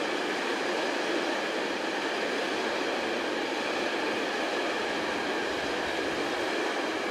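A train running steadily through a station: continuous, even wheel-and-rail noise with no distinct rail-joint clacks.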